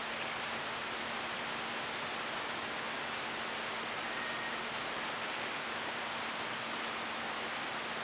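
Steady, even hiss with a faint low hum under it; no owl is calling.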